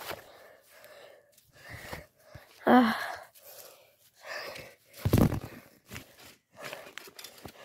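A person breathing hard close to the microphone, in short repeated breaths, with a short loud vocal cry about three seconds in and a low thump about five seconds in.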